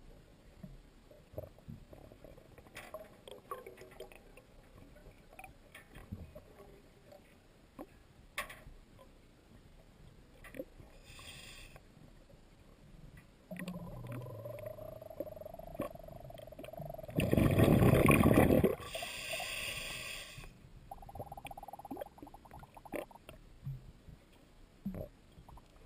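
Underwater sound picked up by a camera in shallow water: scattered faint clicks and ticks. About halfway in a humming drone comes in, and near two thirds in a loud rushing burst lasts about a second and a half.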